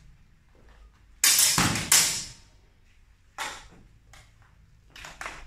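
Longsword blades clashing in sparring: two loud, sharp strikes a bit under a second apart, followed by a few lighter knocks.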